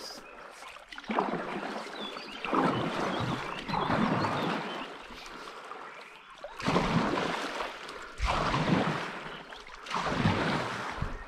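Stand-up paddleboard paddle strokes: the blade splashing and swishing through river water in a steady rhythm, about one stroke every second and a half, with a short pause midway.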